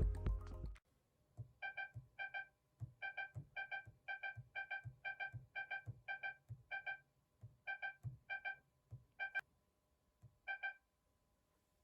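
Panasonic NA-VX9300L drum washer's control panel beeping as its buttons are pressed in service mode: about seventeen short electronic beeps, singly or in quick pairs, each with a soft tap of the button. A tune plays in the first second and cuts off.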